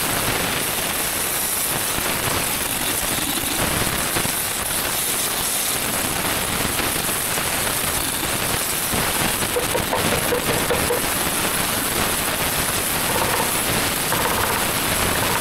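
Oxy-acetylene rosebud heating torch burning with a steady, loud rushing hiss as it heats the bent pin boss of a steel dozer blade C-frame, softening the metal so it can be beaten straight.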